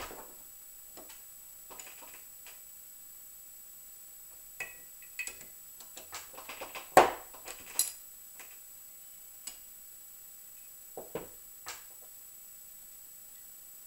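Small metal and plastic parts of a RAP4 Gen4 paintball marker clicking and tapping against each other and the table as they are handled by hand, in scattered taps. One louder knock comes about seven seconds in, and a few more clicks come near eleven seconds.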